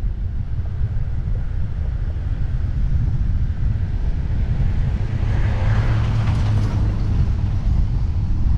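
Wind buffeting the microphone of a car-roof camera while the car drives slowly, a steady low rumble with road noise beneath it. A broader rushing hiss swells about five seconds in and fades again about two seconds later.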